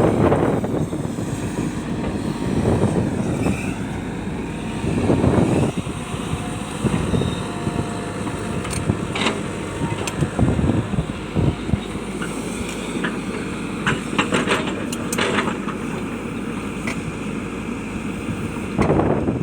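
Hitachi hydraulic excavator's diesel engine working, swelling under load several times, with scattered sharp knocks clustered in the middle stretch.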